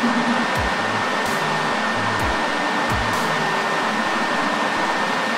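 Steady, even whooshing noise with a faint high whine running through it, like a fan or blower motor running close by. A few soft low thumps sound under it.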